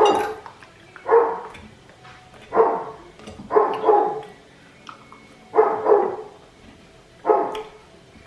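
A dog barking repeatedly, about six barks spaced one to two seconds apart.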